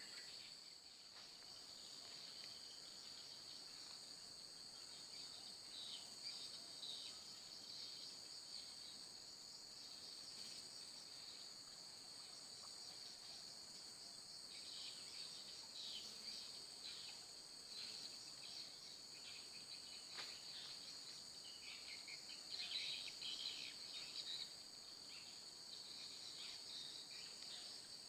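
Faint, steady high-pitched drone of an insect chorus, with scattered short chirps over it in the second half.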